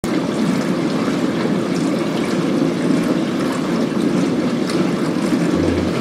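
Dishwasher running: a steady wash of spraying, swishing water inside the machine.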